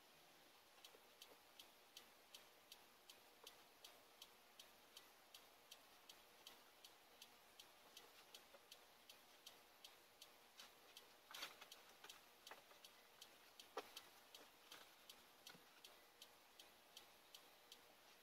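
Faint, steady clock-like ticking, about two to three ticks a second, starting just under a second in. Two brief, louder rustles stand out about two-thirds of the way through.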